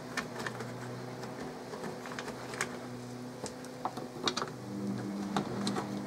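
Scattered light clicks and taps as the bolts of a car's rear light cluster are fitted back by hand, about a dozen small clicks at uneven intervals over a faint steady hum.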